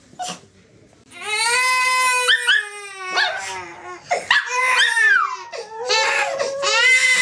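Pomeranian howling: after about a second of quiet, three long, wavering, drawn-out howls with short breaks between them.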